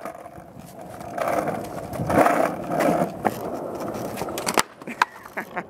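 Penny board's small plastic deck and wheels rolling over rough asphalt, then several sharp clacks as the board strikes the pavement in a kickflip attempt.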